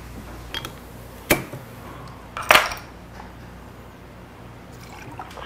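Two sharp knocks of glass bottles and tableware on the table, about a second in and a louder one about two and a half seconds in with a short ring, against the quiet hum of the room.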